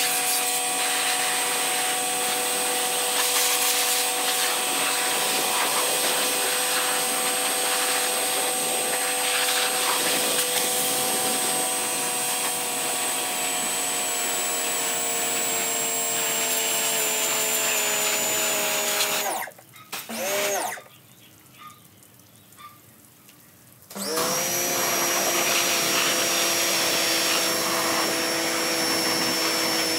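Electric pressure washer motor running with a steady whine over the hiss of the water jet, its pitch slowly sinking. It cuts out about two-thirds of the way through, gives one short burst a second later, then starts up again about four seconds after that.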